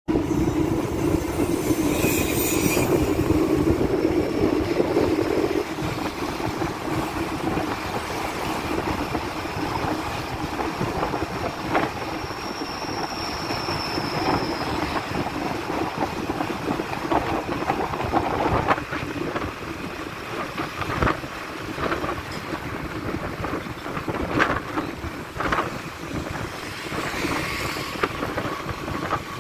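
Steady engine and road rumble of a vehicle travelling along a street among motorbike traffic, heaviest in the first five or six seconds, with a few short knocks later on.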